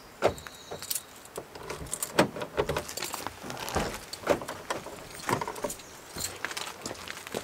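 Keys jangling and clicking at the rear door lock of a Ford van, with irregular knocks and clicks as the door is unlocked and swung open.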